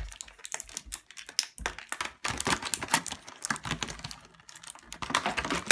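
Small hard plastic toy pieces clicking and clattering as they are handled and set down: a quick, irregular run of light taps.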